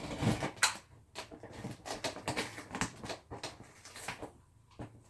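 Packing tape being pulled and torn off a cardboard box, with irregular rips, scrapes and taps of the cardboard being handled.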